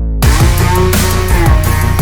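Background music with a heavy electronic beat. A downward sweep ends just after the start, and then drums and bass come in.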